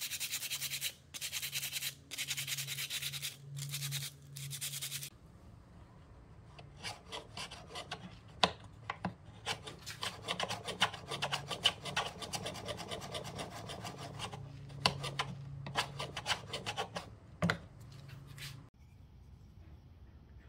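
Sandpaper rubbed by hand over a wooden hand-plane part in quick back-and-forth strokes, about one stroke a second, stopping about five seconds in. Then a quieter, irregular scraping with many sharp clicks, which stops near the end.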